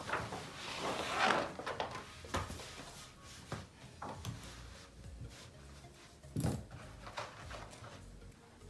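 Large sheets of Bristol paper rustling and crackling as they are lifted, flapped and slid across a table, loudest in the first two seconds, then softer rustles with a single short knock later on.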